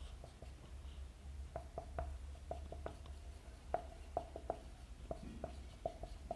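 Marker pen writing in short strokes, squeaking about a dozen times at an irregular pace.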